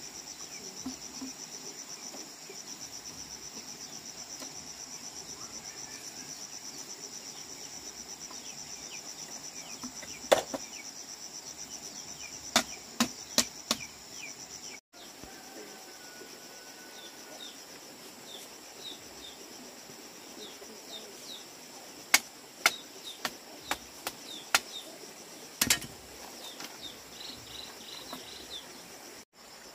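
Steady high-pitched insect chorus, a rapidly pulsing buzz like crickets, with sharp knocks or taps in bursts: one, then a quick run of four, and later a scattered run of several.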